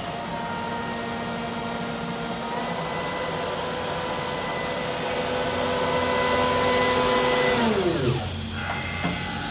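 Kira HPC-30Vb CNC tap and drill centre running, its motor giving a steady whine over a hiss. The whine steps up in pitch a few seconds in, then winds down in a falling glide near the end before the machine picks up again.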